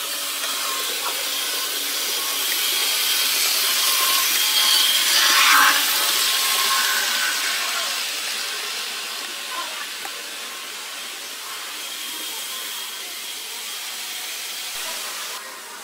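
Model railway train running along the track: a whirring hiss of wheels and motor that swells to its loudest about five and a half seconds in, then fades.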